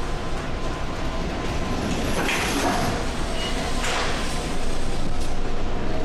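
Steady low rumble and rushing noise heard inside a tanker's wheelhouse in heavy seas: the ship's running rumble mixed with wind and sea wash. The rushing swells twice, about two and four seconds in.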